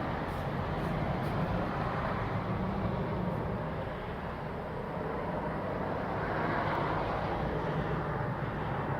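Jet airliner passing overhead, heard indoors through open French doors: a steady broad rumble that dips slightly midway and swells again near the end.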